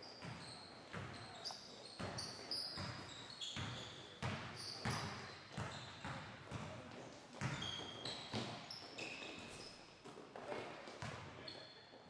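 Basketball bouncing repeatedly on a hardwood gym floor, about twice a second, with sneakers squeaking in short high chirps as players move.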